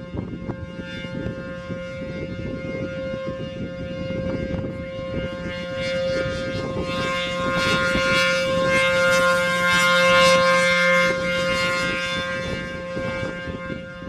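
ACA P-15 15-horsepower rotating siren sounding a steady alert tone. It grows louder as the horn swings toward the listener about midway, then fades as it turns away, with wind rumbling on the microphone.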